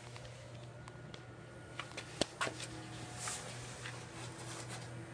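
Microwave oven running with a steady low hum, a few faint ticks over it. There is metal inside, but it is not arcing.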